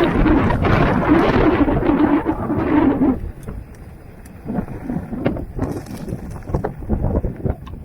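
Mountain bike riding down a dirt trail: rough wind rush on the microphone and the rattle of the bike for about three seconds, then quieter, with scattered knocks and clatters over bumps.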